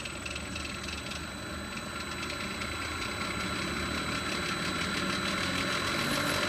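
Electric motor and transfer pump of a mobile diesel fuel polishing system running and ramping up in speed as its variable frequency drive is turned up, growing gradually louder.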